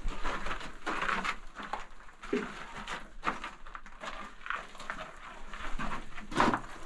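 Footsteps and boots scuffing and crunching on loose gravel and rock in a cramped mine passage, irregular and close-up, with backpack and clothing brushing. Two short vocal sounds, effort grunts or breaths, about two seconds in and near the end.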